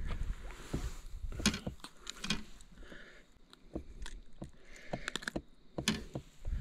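Handling noise as a just-caught crappie is held and unhooked by hand: irregular small clicks, taps and rustles.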